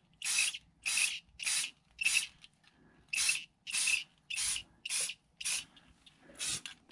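Rust-Oleum aerosol spray paint can hissing in short bursts, about two a second, coating bare welded metal.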